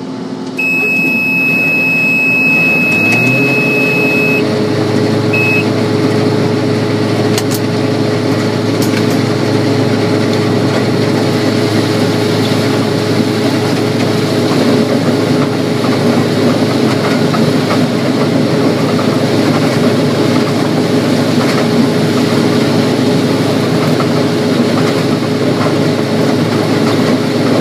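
Combine engine throttling up, its pitch rising a few seconds in, then running steadily while shelling corn. A steady high beep sounds for about four seconds near the start, with a short second beep just after.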